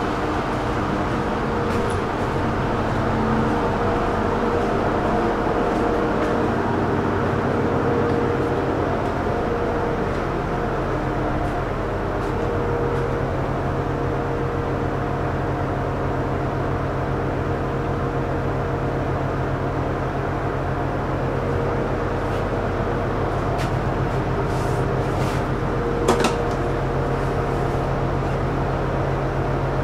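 Cabin hum of an SKM electric commuter train standing at a platform: a steady drone of onboard equipment with several held tones, and a few short clicks near the end.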